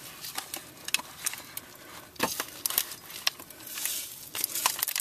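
Aluminum foil crinkling and crackling as a foil-lined meatloaf is lifted out of a slow cooker, in a run of sharp, irregular clicks and rustles.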